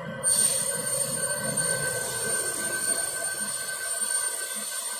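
CO2 laser marking machine working on plywood. A steady high whine comes in about a quarter of a second in and holds over the machine's steady hum and hiss.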